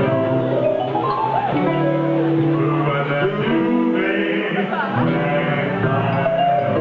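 A band playing live, guitar to the fore over a steady bass line, with some singing mixed in. A few sliding notes come about four to five seconds in.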